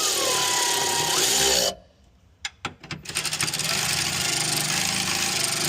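Power driver with a deep-well socket spinning down a battery hold-down nut: it runs with its pitch dropping as the nut takes up, stops suddenly, a few clicks follow, and it runs again about a second later.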